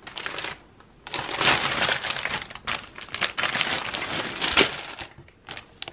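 Clear plastic packaging bag around a velvet cushion cover crinkling as it is handled, in irregular rustling bursts from about a second in until near the end.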